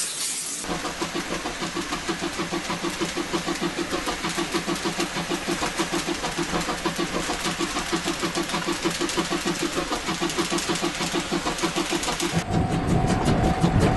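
Steam locomotive exhaust chuffing, a dubbed draft sound effect: an even run of rapid chuffs, several a second, starting about half a second in after a hiss of steam. Near the end the chuffing gives way to a deeper rumble with a steady tone.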